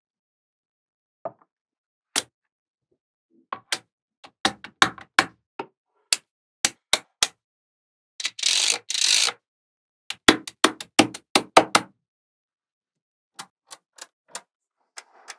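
Small magnetic balls clicking sharply as they snap together, in irregular runs of quick clicks with pauses between, and about a second of dense rattling of many balls near the middle.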